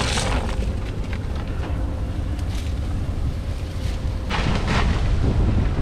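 Wind buffeting the microphone as a steady low rumble. Over it, dry cat kibble rustles and rattles as it is scooped from a plastic feed sack in the first half-second, and the sack rustles again briefly about four and a half seconds in.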